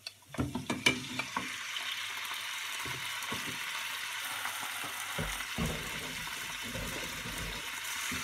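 Pork spare ribs sliding off a plate into a hot frying pan with a short clatter, then searing with a steady sizzle. A wooden spatula knocks and scrapes now and then as the meat is moved about.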